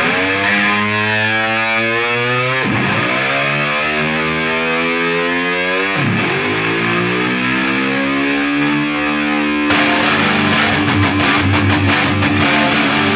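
Rock music soundtrack: a distorted electric guitar holds a chord with a sweeping effect that glides downward and restarts twice. About ten seconds in, a fuller, brighter band sound comes in.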